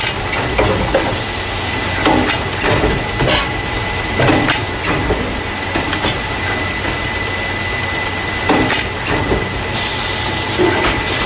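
Carton caser running, the machine that loads paper juice and milk cartons into plastic crates: irregular clunks and knocks over a steady low machine hum, with a constant thin high whine. A hiss rises about a second in and again near the end.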